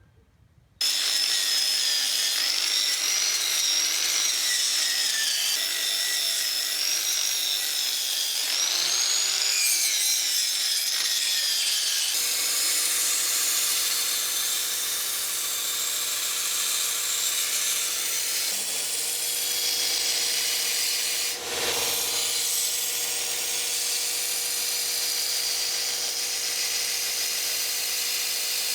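Electric power tool running continuously under load, starting just under a second in. Its pitch wavers up and down as it bites, and about twelve seconds in it changes to a rougher, steadier sound.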